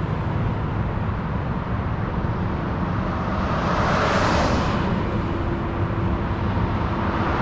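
Road traffic: a steady rumble of freeway traffic, with a car passing close by about four seconds in, its tyre and engine noise swelling and then fading. Another car starts to approach near the end.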